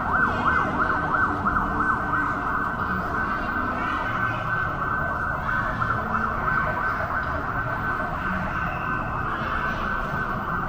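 Ambulance's electronic siren wailing in a fast yelp, its pitch rising and falling several times a second without a break.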